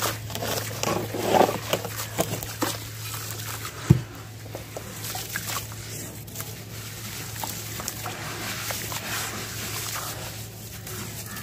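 Hands crushing and squeezing wet, gritty sand chunks in water in a plastic tub: crackly crunching and squelching, with a dull thump about four seconds in.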